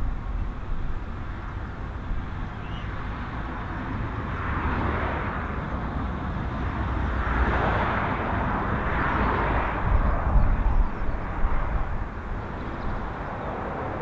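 ATR 72-600 turboprop's engines and propellers as it lands and rolls out, the propeller noise swelling and fading several times, with strong gusty wind rumbling on the microphone.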